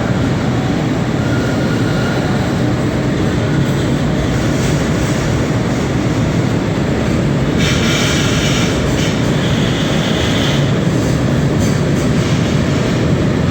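Freight train hauled by an EF210 electric locomotive rolling past on departure: steady running noise of wheels on rails, with a high wheel squeal from a little past halfway to about three-quarters through.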